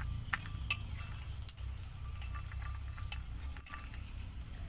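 Metal tool clinking and scraping against a glass bowl as it prods a metal bullion lump in liquid: scattered light clicks over a steady low rumble.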